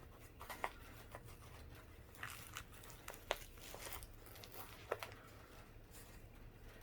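Faint handling of a magnetic wristband's packaging: scattered light clicks and taps with short spells of crinkling and tearing as the package is opened, the sharpest clicks a little past three seconds and near five seconds in.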